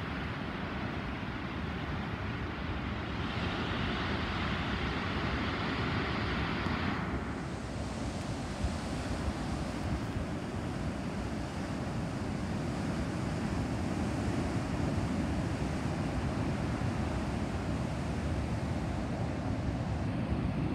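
Wind blowing on the microphone over the steady roar of big-wave surf breaking, with a brighter hiss for a few seconds about three seconds in.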